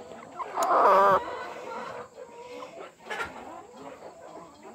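A chicken held in someone's arms gives one loud, wavering squawk lasting about half a second, close to a second in, followed by fainter sounds.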